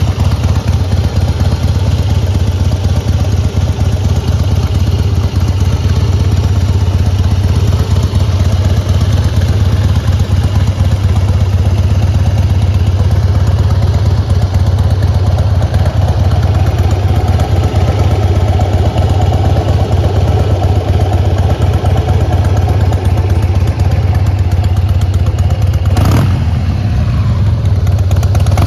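2004 Harley-Davidson Heritage Softail Classic's fuel-injected Twin Cam 88B V-twin idling steadily, with a sharp click near the end.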